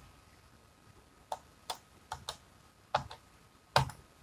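A handful of separate clicks from a computer keyboard and mouse, about six spread out, the loudest near the end.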